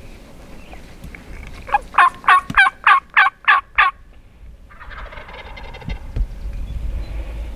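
Wild turkey calling: a loud run of seven yelps, about three a second, then about a second later a fainter rattling gobble.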